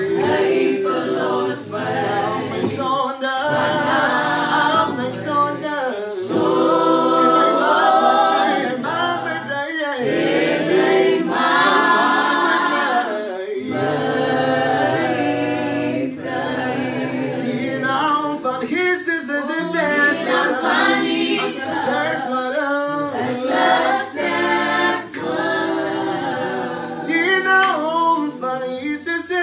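Voices singing a gospel worship song without instruments.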